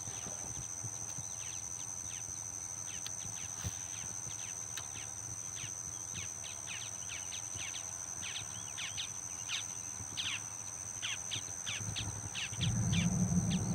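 Insects droning steadily in two even, high tones, with many quick, falling bird chirps that grow busier a few seconds in. A low hum comes in near the end.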